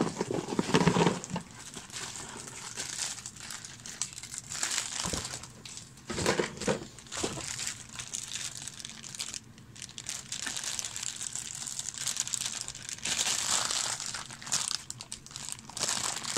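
Clear plastic bags crinkling and rustling as hands rummage through and pull out bagged miniatures, a little louder near the end.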